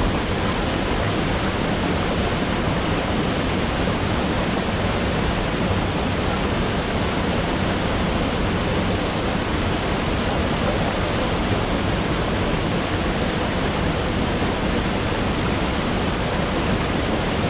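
A waterfall pouring: a steady, unbroken rush of falling water.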